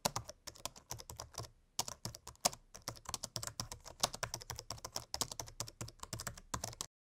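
Typing on a computer keyboard: a fast, irregular run of key clicks that cuts off abruptly near the end.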